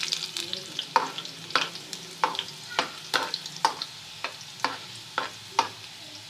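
Chopped onion frying in hot ghee in a small pan, sizzling as it browns toward golden, while a spoon scrapes and stirs it with sharp strokes about twice a second.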